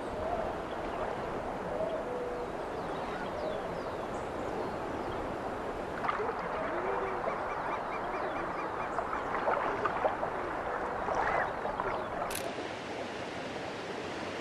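Birds calling, many short chirping calls, over a steady background hiss; the calls grow busier about halfway through.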